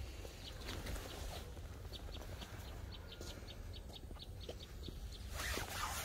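Birds calling faintly: short, high chirps repeating irregularly several times a second. A brief brushing noise comes near the end.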